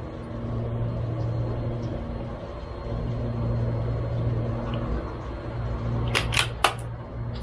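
A steady low hum, then about six seconds in a quick run of four sharp metallic clicks, fitting the bolt of a CZ 457 MTR .22LR bolt-action rifle being worked open and closed.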